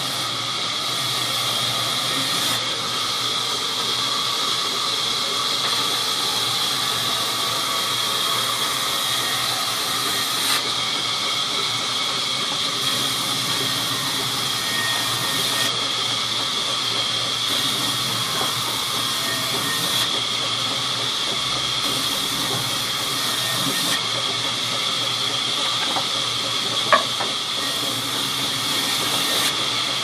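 Sawmill band saw running continuously and ripping wooden planks, a loud steady hiss with a high ringing tone. A couple of sharp knocks, the louder one near the end.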